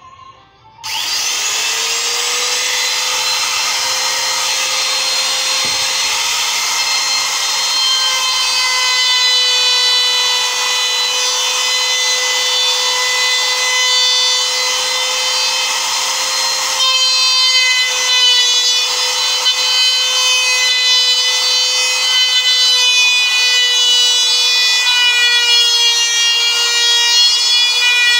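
A compact electric trim router switches on about a second in and spins up to a steady high whine. Its bit is then run along the edge of a wooden board, and the whine wavers and gets a little louder from about halfway through.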